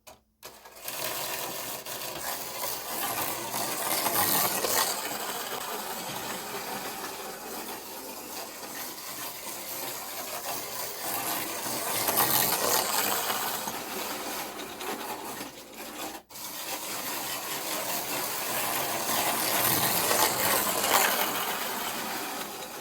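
Micro slot cars running laps on the track: a steady electric motor whirr with the pickup brushes rasping on the rails. It swells each time a car comes round, about every eight seconds, and cuts out for an instant about 16 seconds in.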